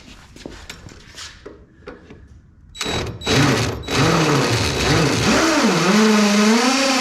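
Electric drill drilling out a rivet: a few light taps, then the drill starting in short bursts about three seconds in and running steadily from about four seconds, its pitch dipping and wavering as the bit bites into the rivet.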